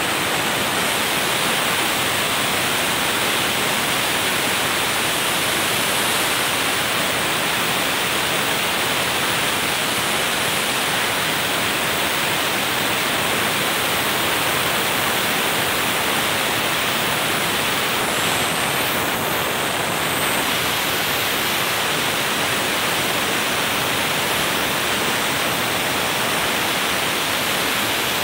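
Portable sandblaster blasting abrasive through a hand-held nozzle with compressed air onto a small metal part: a loud, steady hiss of air and grit.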